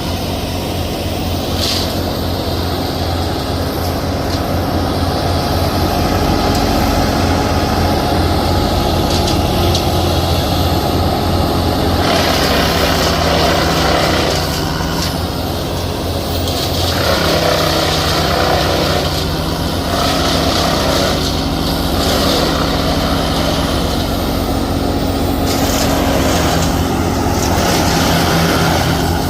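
A large engine on heavy tree-work equipment running steadily, with its sound swelling and easing now and then as the load changes.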